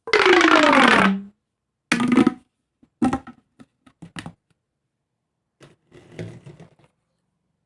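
Plastic pop tube being flexed: a loud, pitched ratcheting whirr about a second long that falls in pitch. It is followed by several short snaps and clicks and, later, a softer crackling.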